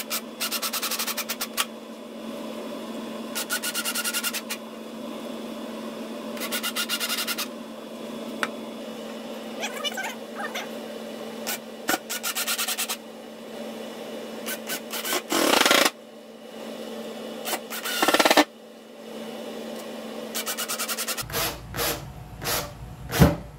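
Handheld power tool working wood in short bursts of about a second, five or so times, with sharp knocks and handling clatter between them over a steady low hum.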